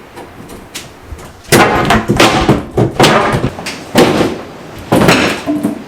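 Wooden kitchen cabinetry being pulled apart and handled: a run of about five loud thuds and knocks, starting about a second and a half in.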